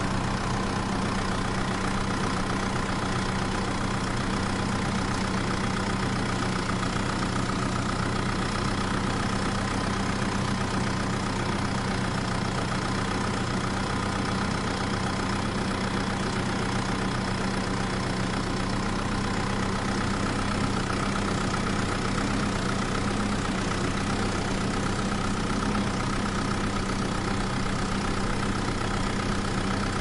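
Steady diesel-tractor-style engine idling sound with a low, even hum, coming from a modified remote-control toy tractor as it drives; the pitch never rises or falls with the toy's movement.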